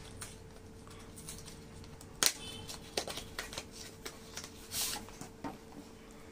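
A cardboard T-shirt retail box being opened by hand and the folded shirt pulled out of its packaging. There is a sharp snap about two seconds in, then a run of small clicks and a short rustle of packaging.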